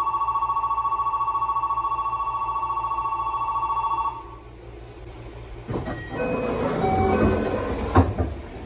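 Station platform departure bell ringing, a fast steady electric ring on two notes that stops about four seconds in. Then comes a hiss and clatter with short chime-like tones and a sharp knock near the end, as the train's doors close.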